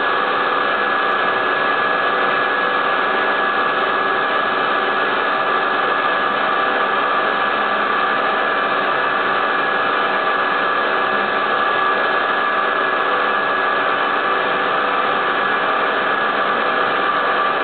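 High-speed CNC milling spindle running steadily while a fine end mill cuts a groove into a clear plastic sheet: a constant whine over a steady hiss of cutting, with no change in pitch or level.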